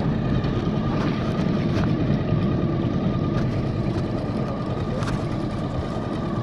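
Small outboard motor running steadily at trolling speed, a low even drone with a thin steady whine above it.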